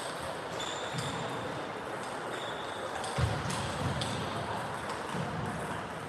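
Table tennis ball knocking off bats, table and floor: a few sharp separate clicks, with one heavier low thump a little after three seconds. Two brief high squeaks are heard between them.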